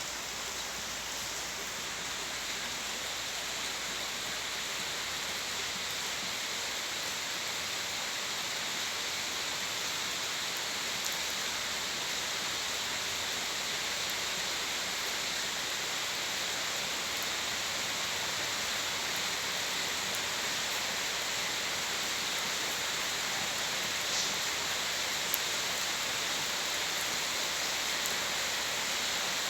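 Steady rain falling without thunder: an even, unbroken hiss with a few faint drop ticks.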